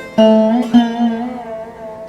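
Instrumental Indian classical music on a plucked string instrument. A note is struck just after the start and another about half a second later; each rings on and bends in pitch.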